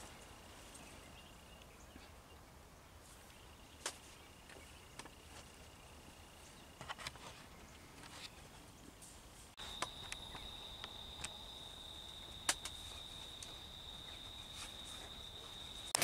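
Faint outdoor ambience of an insect's steady high-pitched trill, which breaks off and comes back at a higher pitch about two-thirds of the way through. Scattered light clicks and knocks sound over it.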